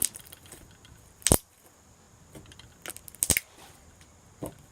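Slime being handled and squeezed, giving a few sharp clicks and pops: the loudest about a second in, two close together about three seconds in, and a softer one near the end.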